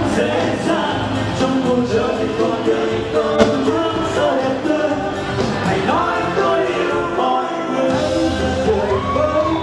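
A live pop song: several voices singing together in harmony over a band or backing track, with the bass dropping out briefly a little past halfway and then coming back in.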